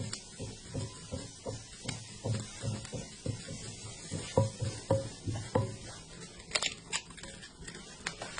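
Metal batter scraper knocking and scraping on a round iron crepe griddle as the batter is spread: a run of light knocks, several with a short metallic ring, and a couple of sharper clicks about six and a half seconds in.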